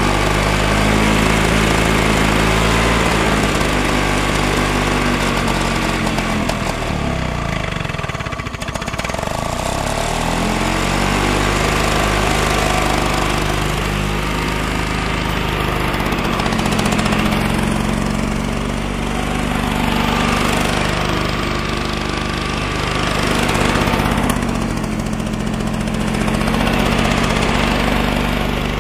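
Flymo L47 two-stroke hover mower engine running after a pull-start, its revs rising and falling unevenly, with a dip about eight seconds in. The owner says it is not running right and suspects a blocked carburettor jet.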